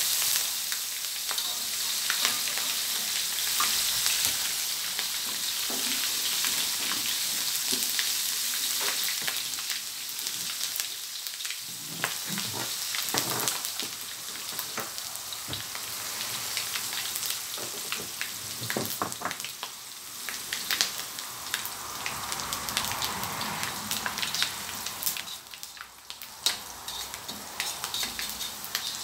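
Shredded lemongrass deep-frying in hot oil in a wok: a dense, hissing sizzle that is loudest just after it goes in and gradually dies down. Scattered clicks and scrapes come from a metal spatula stirring it in the wok.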